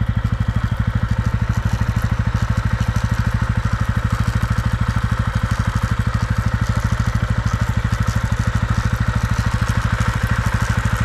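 TVS Ronin 225's single-cylinder engine running steadily in a higher gear, with a rattling 'kar kar' noise from the drive chain as it runs round the front sprocket. This chain noise appears only in the higher gears, and the owner takes it for a fault that other Ronin owners share.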